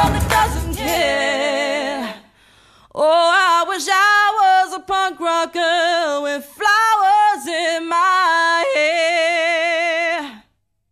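A band track ends about two seconds in, then a woman sings unaccompanied, wordless held notes with vibrato in several short phrases, cutting off suddenly near the end.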